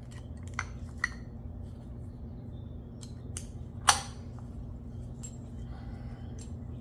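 Light metal clicks and clinks of brake pads and a pad retaining pin being handled and fitted into a Wilwood disc brake caliper, with one sharper clink about four seconds in.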